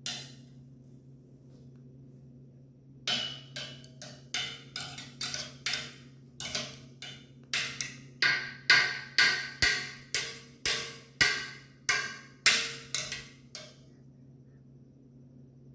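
A small child banging a utensil on a hard surface: one knock, a pause of a few seconds, then a run of about two dozen sharp strikes, two to three a second, that grow louder before stopping near the end. A steady low hum sits underneath.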